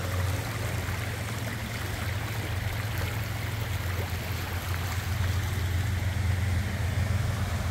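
Storm runoff flowing steadily along a creek over stones, a continuous rush of water.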